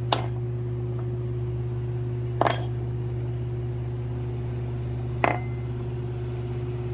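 Three sharp metallic clinks a couple of seconds apart: worn, spun connecting-rod bearing shells being handled and set down. A steady low hum runs underneath.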